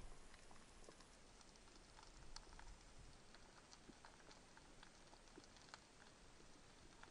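Faint underwater ambience: scattered, irregular tiny clicks and crackles heard by a camera underwater, with a faint low rumble about two and a half seconds in.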